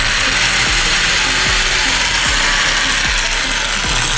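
Bosch corded electric drill with a small hole saw running steadily, cutting into the hard plastic of a truck side-mirror housing.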